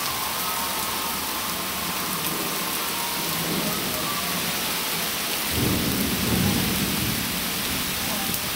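Steady rain falling, with a roll of thunder that builds about halfway through, is loudest for a second or two and then fades.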